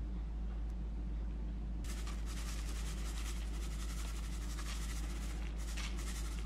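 Raw cane sugar being poured and shaken over a salad in a glass bowl: a fine, grainy hiss of granules landing, starting about two seconds in and ending in a few short shakes, over a steady low hum.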